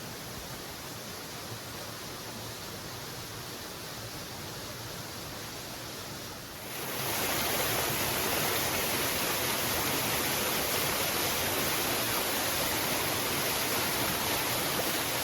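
Waterfall rushing steadily. About halfway through it suddenly becomes louder and brighter, then holds steady.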